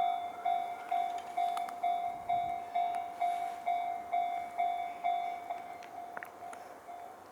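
Japanese railway level-crossing warning bell ringing, a repeated electronic clang about twice a second, warning that a train is approaching. It grows a little fainter near the end.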